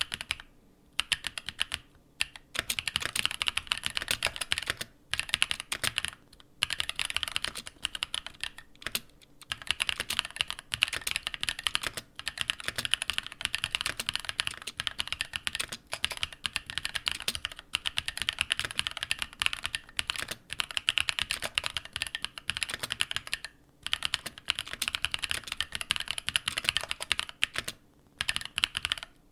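Fast typing on a mechanical keyboard with linear switches. Dense runs of clacky keystrokes are broken every few seconds by short pauses.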